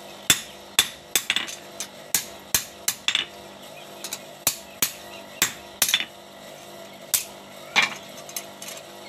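Hand hammer striking a machete blade held in tongs on an anvil while forging it: sharp metal-on-metal blows, about two a second, each with a short ring.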